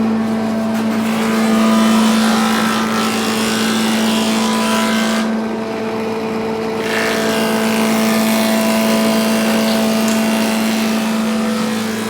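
Woodworking power tool running at a steady speed: a constant motor hum with noisy cutting hiss over it. The hiss drops away for a moment around the middle, then returns.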